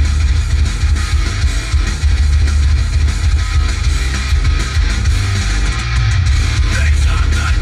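Loud rock music with guitar playing through a car stereo, with heavy bass from a 10-inch Dual subwoofer.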